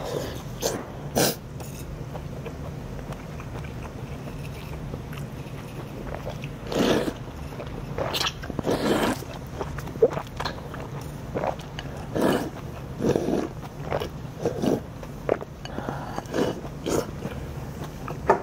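Udon noodles being slurped from a bowl of broth and chewed, in a run of short, irregular slurps.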